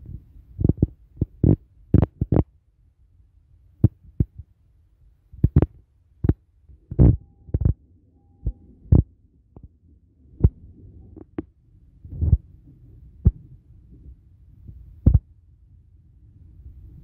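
Irregular dull knocks and thuds against a car, about twenty of them and unevenly spaced, over a low steady rumble heard inside the cabin during heavy rain.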